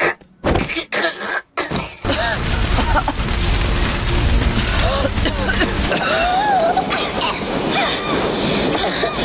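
Cartoon characters coughing and clearing their throats in quick succession: several short separate coughs in the first two seconds, then a dense stretch of coughing voices mixed with film soundtrack music and effects.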